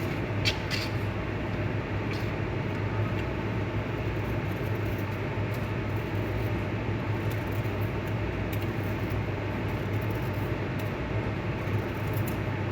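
A steady low hum with an even rushing noise over it, like a running fan or motor, with a few faint clicks.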